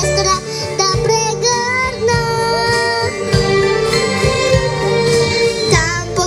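Young girls singing into microphones over instrumental accompaniment with a steady low beat, amplified through a stage PA; the sung notes are held and waver.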